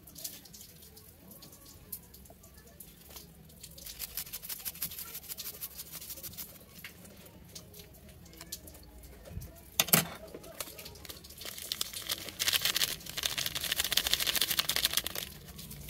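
Garlic scraped over a small metal hand grater, with light rubbing and scratching. There is a sharp knock about ten seconds in. Then a paper-foil seasoning sachet is torn open with a loud crinkling for about three seconds near the end.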